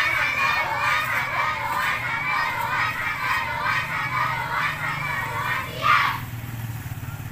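A group of schoolchildren shouting together for about six seconds, ending with one loud shout, after which the voices stop.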